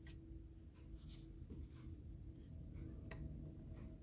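Faint handling noise: a few light clicks and scratches as an electrolytic capacitor's leads are worked against a circuit board, over a low steady hum.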